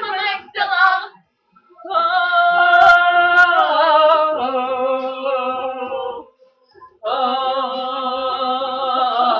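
Young women's voices singing a cappella: a few short sung syllables, then a long held note that steps down in pitch partway through, a brief pause, and a second long held note.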